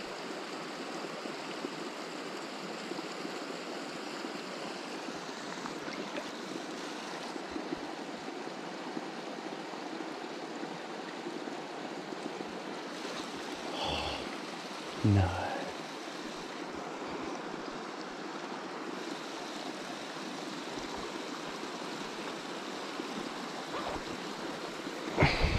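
Shallow river water running steadily over rocks in a riffle. About halfway through there is a short, louder sound, and right at the end a sharp knock.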